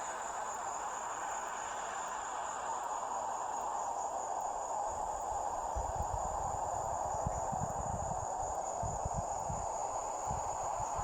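Crickets trilling steadily in one continuous high-pitched tone, over a steady hiss. Low rumbles come and go from about halfway through.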